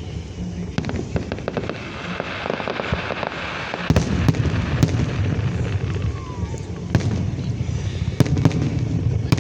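Aerial fireworks going off: sharp bangs every second or so, with a quick run of crackles about a second in.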